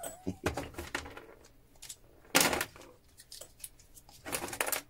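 Small metal and plastic relay-switch parts clicking and clinking as a relay is pulled apart by hand and pieces are dropped into containers, with a louder clatter about halfway through and a short rattle near the end.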